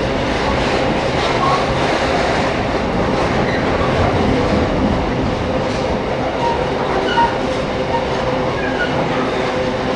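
Container freight train running through the station: a steady rumble and clatter of wagon wheels on the rails, with a faint steady tone and a few short squeaks.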